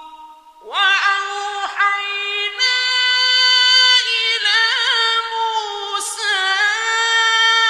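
A single male voice reciting the Quran in melodic, drawn-out chant: a short breath pause near the start, then long high held notes with wavering ornaments.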